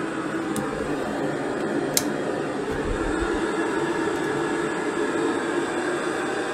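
A steady droning hum that keeps going after the appliance has been switched off at the wall socket. One sharp click comes about two seconds in.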